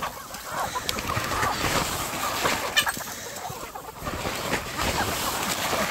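A crowded flock of chickens clucking and calling over one another while they move about the pen, with one sharp click nearly three seconds in.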